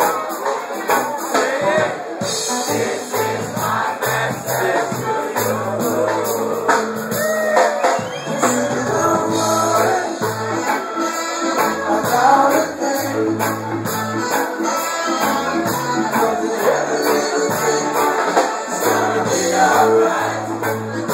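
Live reggae band playing, with a steady stepping bass line under guitar and drums, and singing over the top.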